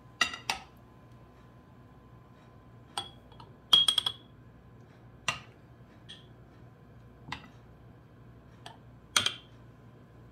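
A metal spoon clinking against a glass bowl and small glass jars as a thick strawberry cream is spooned into the jars. About ten separate sharp clinks come every second or so, some with a brief glassy ring, and are loudest about four and about nine seconds in.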